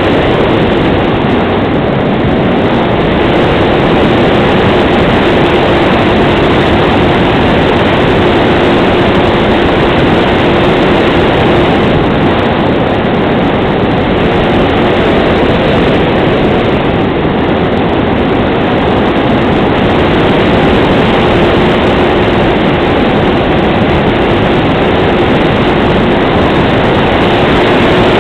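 Loud, steady rush of airflow over a Grunau Baby glider in flight, buffeting the onboard camera's microphone, with a faint steady whistle that comes and goes.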